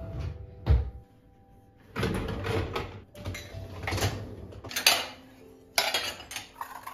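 A kitchen drawer shut with a thud under a second in, then a dishwasher being unloaded: the rack slides and glasses and dishes clink and rattle in several bursts.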